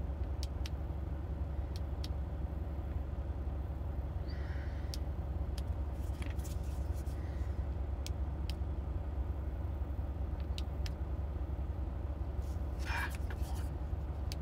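Steady low engine drone, like an idling vehicle, with scattered small sharp clicks and handling noises over it.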